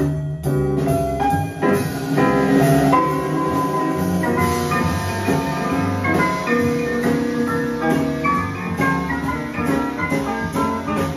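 Jazz piano trio music played from a vinyl record on the turntable: piano notes over a walking bass line.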